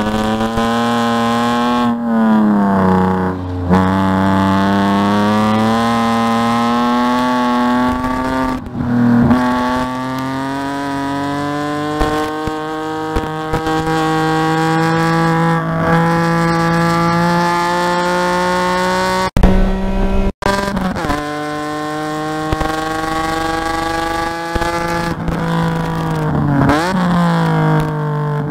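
Track car's engine heard from inside a BMW E46 3 Series cabin under load, its pitch climbing slowly through long pulls and dropping sharply at gear changes or lifts, about three times. A sudden loud thump about two-thirds of the way through, with a brief cut in the sound right after.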